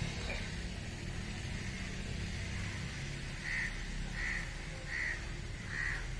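Outdoor ambience with a steady low rumble. From about halfway through, a bird calls a short note four times, roughly every three quarters of a second.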